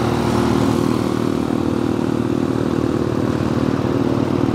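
Vehicle engine running steadily at an even pitch, heard from on board while travelling.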